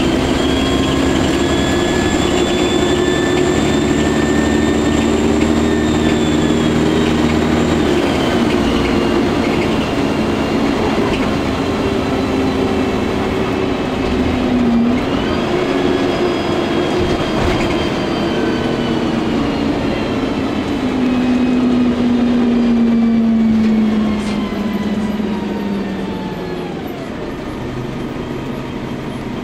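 Volvo Olympian double-decker bus's engine and transmission working hard, heard from inside the passenger saloon. Its whines shift at about eight and fifteen seconds in, then a long whine falls in pitch and the sound eases off about 24 seconds in as the bus slows.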